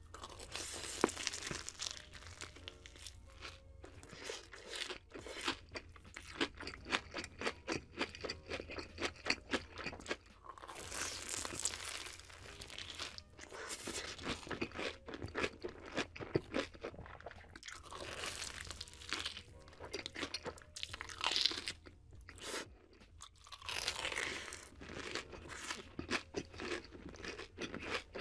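Close-miked eating of a fried Korean corn dog: bites through the crisp batter crust followed by wet, crunchy chewing, with louder bursts of crunching again and again.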